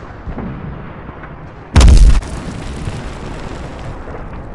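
A loud explosion-type blast about two seconds in, followed by a lingering low rumble.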